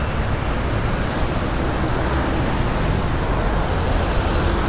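Steady road traffic noise from cars on the driveway, a low rumble with a faint steady engine hum joining about halfway through.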